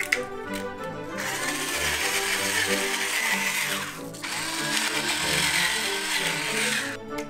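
A spice grinder grinding in two steady spells of about three seconds each, salt and then black pepper going into beaten-to-be eggs, over background music.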